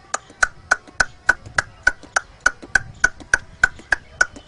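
Tongue clicks imitating a horse's hooves clip-clopping on a paved road as it pulls a tonga: a steady run of sharp clicks, about three or four a second.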